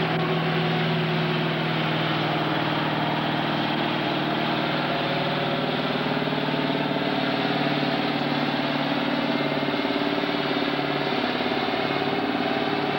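Farm-stock pulling tractor's engine running hard at a steady pitch under full load as it drags a weight-transfer sled down the track.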